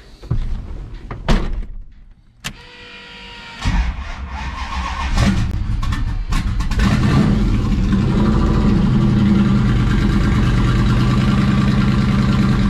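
Turbocharged Hemi V8, swapped into a pickup, started for the first time, heard from inside the cab. After a few clicks and a brief whine, the engine cranks and fires about three and a half seconds in, comes up in revs, and from about seven seconds in settles into a steady, loud idle.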